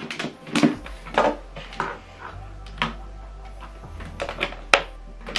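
Handling noise from an optical audio cable and its loose wires being moved around a soundbar and TV stand: scattered light clicks and knocks, with a steady low rumble underneath from about a second in.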